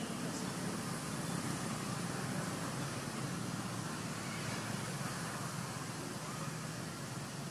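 Steady outdoor background noise: a low rumble with hiss above it, even throughout, with no distinct events.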